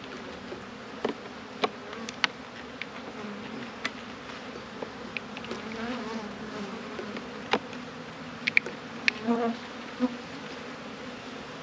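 Honey bees humming steadily around an opened hive, with the buzz of individual bees rising and falling as they fly close. Scattered sharp clicks and knocks come as the hive's wooden frames are worked loose by hand.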